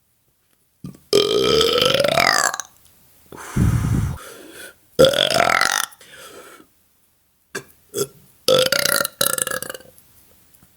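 A woman belching loudly again and again: several long, deep burps a second or two apart, the first one rising in pitch, with a shorter low rumbling belch among them.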